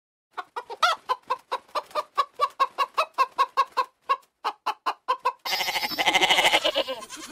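Chicken clucking: a steady run of short, repeated clucks, about four a second. Near the end a louder, continuous sound cuts in.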